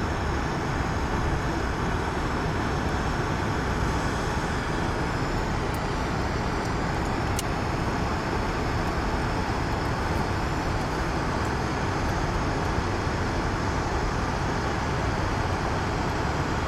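Steady road noise of a car driving through a road tunnel, heard from inside the cabin.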